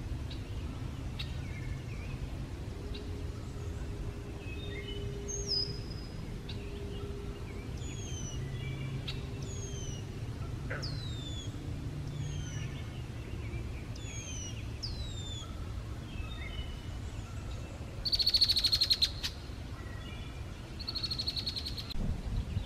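Wild songbirds singing: a short falling whistle repeated every second or two. Twice near the end comes a louder buzzy trill. A low steady hum runs underneath.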